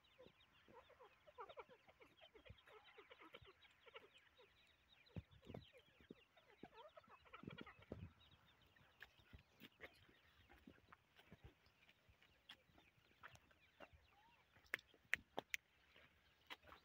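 Grey francolin chicks peeping faintly in a rapid stream of short, falling chirps, dense for the first half and thinning out after about eight seconds. A few sharp clicks come near the end.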